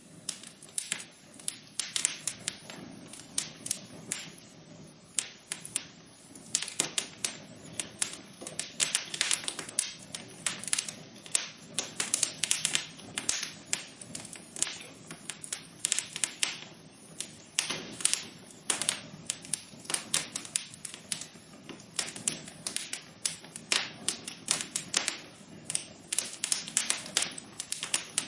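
Wood fire in a fireplace crackling: irregular sharp pops and snaps, often several a second and sometimes in quick clusters, over a soft low hiss of burning.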